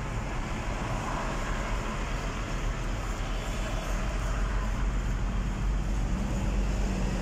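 Steady road noise heard from inside a moving car: a low rumble of engine and tyres under an even hiss of passing traffic.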